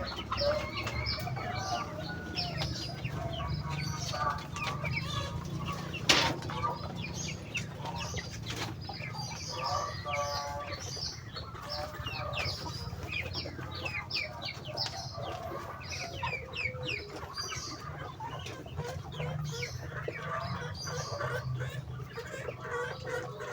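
A flock of muscovy ducks at feeding time: many short, high peeps and calls overlapping throughout, with a longer call about ten seconds in, over a steady low hum. One sharp knock about six seconds in.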